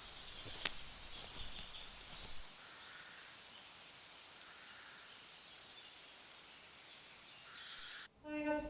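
Faint outdoor ambience with light birdsong over a soft hiss, and one sharp click about half a second in. The ambience cuts off abruptly near the end.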